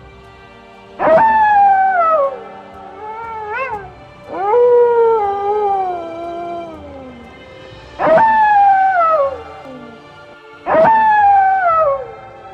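An animal giving five cries that fall in pitch, each about one to two seconds long, with the second the longest, over steady background music.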